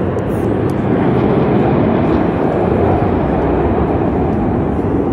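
Two airshow display aircraft flying a pass, their engines making a loud, steady roar.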